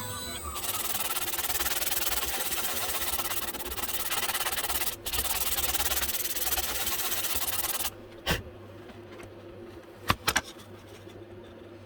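A steady, dense rubbing hiss that stops abruptly about eight seconds in, followed by a few light knocks.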